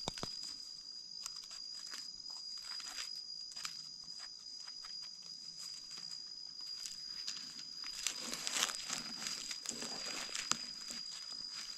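A knife scraping and digging in dry, gravelly soil around a mushroom button, with dry leaves crackling and short crunches and clicks that come thicker near the end. A steady high insect whine runs underneath.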